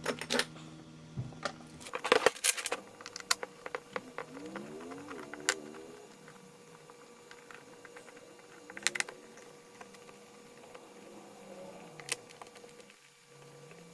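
Plastic housing of a NOCO GB150 jump starter being handled as its circuit board is fitted in: scattered clicks and knocks, busiest about two seconds in, with a short squeak about five seconds in.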